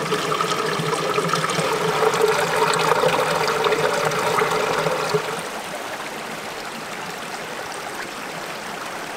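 Water trickling through hidden channels under the rocks of a mostly dry riverbed, with a hollow, deeper, almost echoing sound. About five seconds in it drops quieter and evens out.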